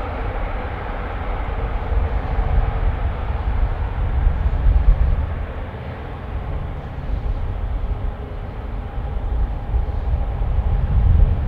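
Airbus A350-941's Rolls-Royce Trent XWB engines running at low power as it taxis: a distant hum with a faint steady whine, over a heavy low rumble that swells and fades.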